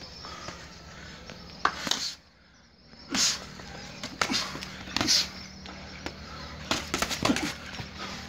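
Muay Thai sparring: kicks and punches landing on boxing gloves and body with sharp slaps and thuds, several in quick succession about seven seconds in, among shuffling footwork on mats.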